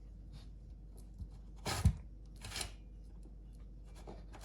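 Chainsaw bar and chain being handled while fitted: a short metallic scrape ending in a sharp clack a little under two seconds in, then a second brief scrape.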